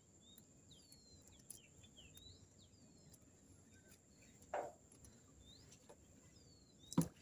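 Outdoor ambience of many short, falling bird chirps over a steady high whine. A brief low rustle about halfway through, and a sharp knock near the end.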